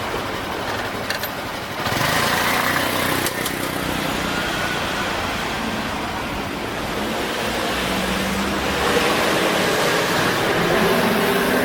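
Road traffic noise: vehicles passing steadily, getting louder about two seconds in.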